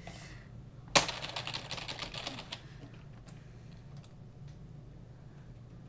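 Typing on a laptop keyboard: a hard keystroke about a second in, a quick run of key clicks lasting a second or so, then a few scattered single taps.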